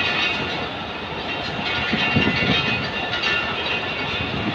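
Passenger coaches of a departing train rolling past, their wheels clattering on the rails, with a cluster of heavier knocks about two seconds in.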